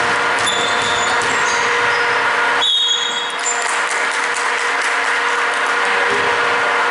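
Steady loud hiss and hum filling a large gym hall, with a few short, high sneaker squeaks on the hardwood floor, one about half a second in and a louder one near three seconds.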